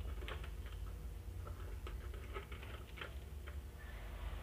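Faint, scattered small clicks and ticks over a low steady hum: handling while the mains supply is connected to a newly wired switchboard.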